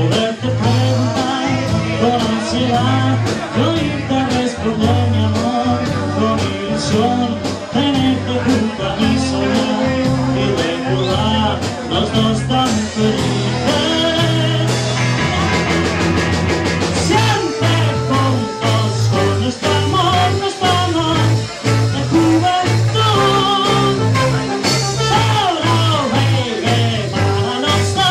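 A live band playing an upbeat 1960s-style rock-and-roll number on electric guitar, bass, drums and trombone, with singing over it.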